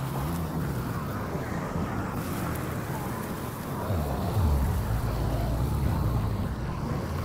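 Dark ambient horror soundscape: a dense low rumble with deep tones that slide downward in pitch, most strongly about four seconds in.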